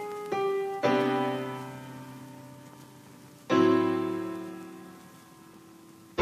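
Background piano music: slow chords, each struck and left to ring and die away, one just after the start, another just under a second in, and a third about three and a half seconds in.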